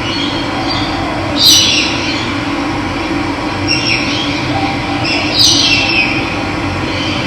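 Steady rush of running water with wild birds calling over it: short calls falling in pitch, the loudest about one and a half and five and a half seconds in, weaker ones around four seconds.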